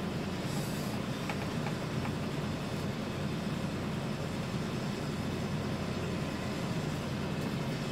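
Mitsubishi Fuso Fighter truck's diesel engine idling, a steady low hum heard from inside the cab.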